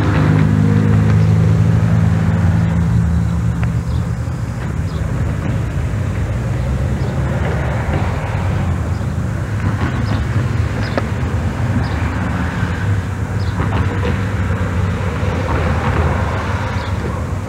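A passing car's engine, a low hum that fades over the first three seconds into a steady low outdoor rumble, with a few faint short high chirps.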